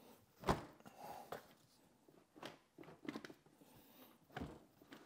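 A few faint, irregular knocks and rubbing sounds as a built-in dishwasher is nudged sideways in its cabinet opening, the loudest knock about half a second in.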